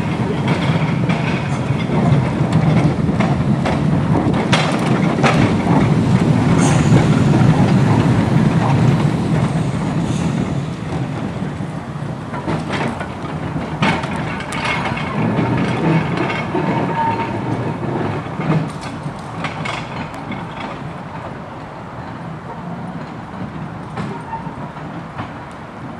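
Open-top double-deck Stockport Corporation Tramways electric tram running past on its track: a steady low rumble with scattered sharp clicks of the wheels on the rails. It grows louder over the first several seconds, then fades as the tram moves away.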